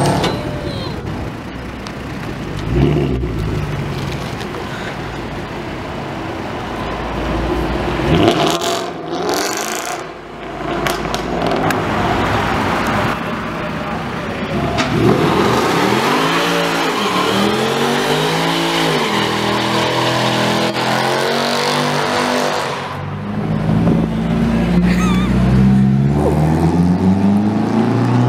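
Mercedes-Benz C63 AMG's naturally aspirated 6.2-litre V8, loud, revved and accelerating in a series of rising and falling surges. Near the end the revs climb and are held high as the car does a burnout.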